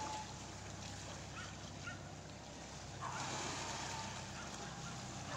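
Steady low hum of a boat engine running at idle over the wash of open water. About three seconds in comes one long drawn-out call that falls in pitch and then holds.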